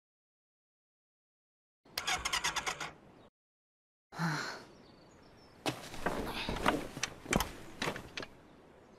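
Motorcycle electric starter cranking quickly for about a second on a weak battery, then stopping. Later come a short rush of noise and a run of sharp mechanical clunks and knocks, the loudest near the end, as the kickstart pedal is worked.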